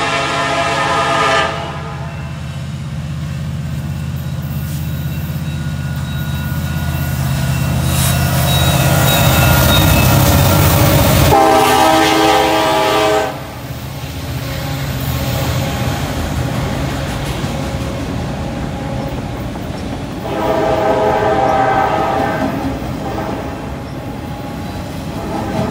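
Freight train passing: the diesel locomotives' engines rumble louder as they come up and pass, then drop away suddenly. The locomotive air horn sounds four times: at the start, as the locomotives go by about halfway through, again a few seconds later, and once more at the end. Between the horn blasts, a long string of autorack cars rolls past on the rails.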